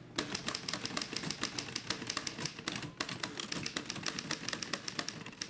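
Manual typewriter being typed on at a fast, steady pace: a dense run of key strikes clacking against the platen.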